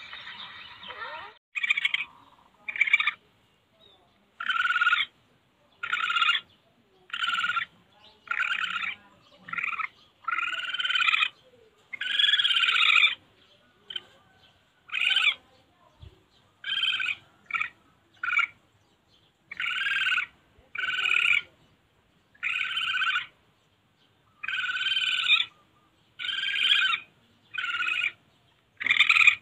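Civet calls played back as a hunting lure: short calls repeated about once a second with brief gaps, starting about a second and a half in.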